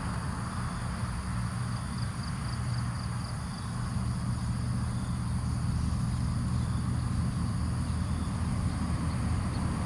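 Outdoor ambience: a steady low hum of distant road traffic, with faint insect chirps for a second or so about two seconds in.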